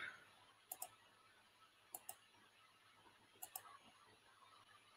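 Three pairs of faint, sharp clicks about a second and a half apart over near silence: a computer mouse clicking as the presentation slides are advanced.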